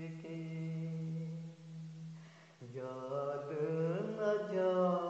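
A man singing a slow vocal line, holding one long steady note, then after a short break about two and a half seconds in starting a new phrase with sliding, bending pitch.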